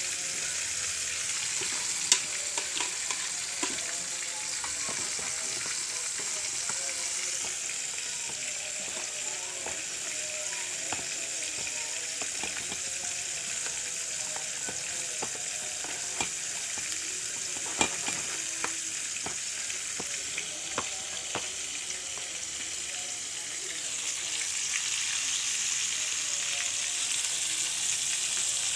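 Flour-coated chicken pieces deep-frying in hot oil: a steady sizzle that grows louder near the end, with a few sharp clicks.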